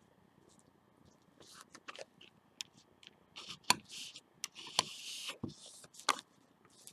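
A plastic scraper card scraping nail polish across a metal nail-stamping plate: several quick, hissy scrapes with sharp clicks in between.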